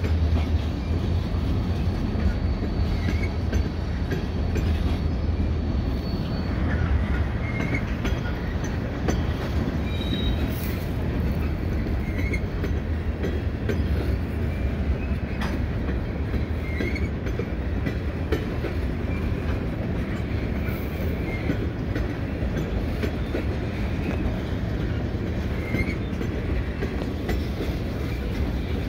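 Freight train passing: diesel locomotives with a low engine hum for the first several seconds, then a long string of tank cars rolling by with the clickety-clack of wheels over rail joints and brief wheel squeals.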